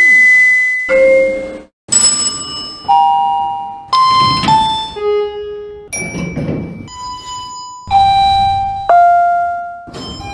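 A run of lift arrival chimes, about a dozen single dings roughly one a second. Each is at a different pitch, starts sharply and dies away, and there are abrupt cuts between them, like a montage of different elevators' chimes.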